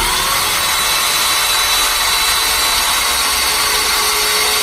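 Power saw running steadily at full speed through wood, a high steady whine over a dense hiss.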